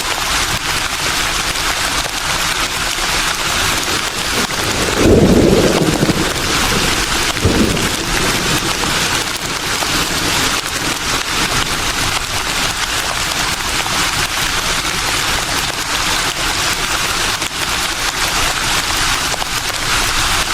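Leaves rustling in a breeze: a steady, dense hiss, with a low rumble about five seconds in and a shorter one a couple of seconds later.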